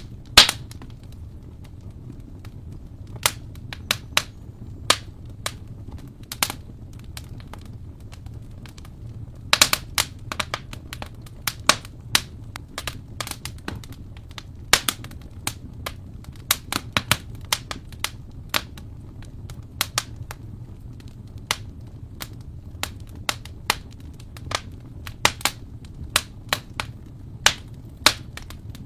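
Wood fire in an open fireplace crackling, with sharp irregular pops and snaps over a steady low rumble of the flames.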